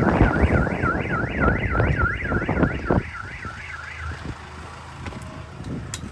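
Car alarm siren wailing, a tone sweeping up and down about three times a second, cutting off about four seconds in.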